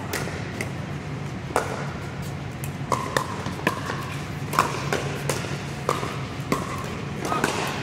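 Pickleball rally: about ten sharp pops of paddles striking the hollow plastic ball at uneven intervals, each with a short ring, over a steady low hum of the hall.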